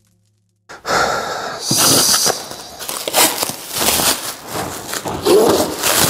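Clear plastic stretch film being pulled and peeled off a large cardboard box, with irregular crinkling and ripping that starts suddenly less than a second in.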